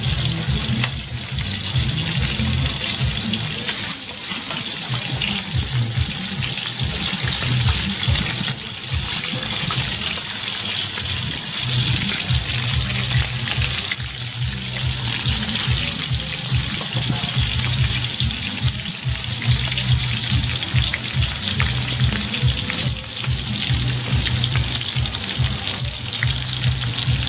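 Small birds sizzling steadily in hot frying oil, over background music with a low, pulsing beat.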